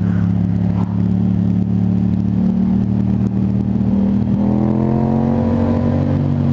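Motorcycle engine running steadily at low revs under way. About four seconds in its pitch rises gently as it picks up speed.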